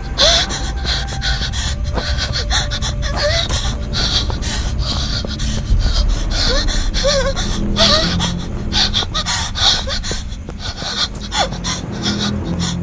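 A person running, gasping and panting hard in quick, rhythmic breaths, with footfalls.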